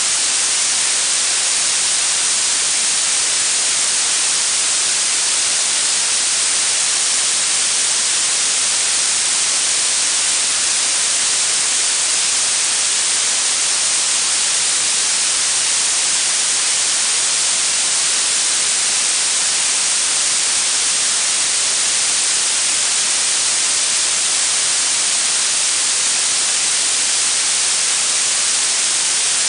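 Synthetic blue noise: a steady, unchanging hiss weighted toward the high end, with very little low rumble.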